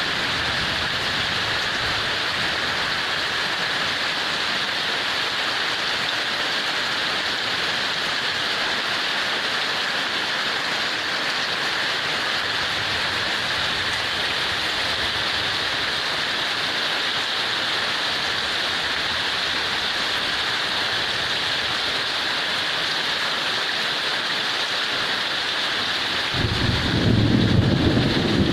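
Heavy rain falling in a steady, unbroken hiss. About 26 seconds in, a louder low rumble joins it.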